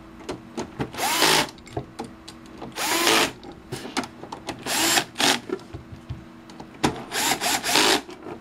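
Cordless power screwdriver driving in the case screws of a test instrument. It runs in about four short bursts of roughly half a second, each with a brief rising whine, with clicks and handling between.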